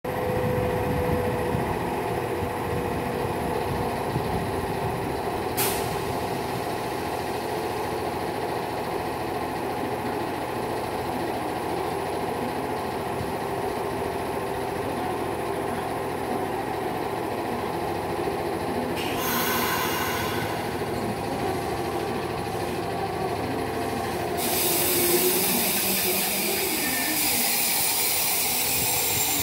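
Nishitetsu 5000-series electric train standing at the platform with its equipment running steadily, then a brief hiss of air about two-thirds through, after which the train starts to pull away with a whine rising in pitch as it accelerates.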